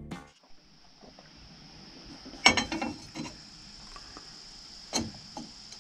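A few light metallic clinks and knocks as an aluminium checker-plate pedal plate is handled against an excavator's steel travel lever: a small cluster about halfway in and one more near the end, over a steady high-pitched hum.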